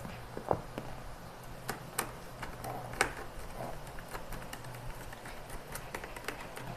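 Scattered small clicks and ticks of a screwdriver and plastic parts as the stock screws are driven back into a motorcycle helmet's visor holder plate, the sharpest about two and three seconds in.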